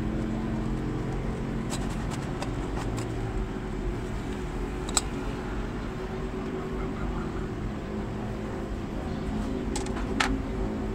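A steady low mechanical hum with a few short, light clicks and knocks scattered through it.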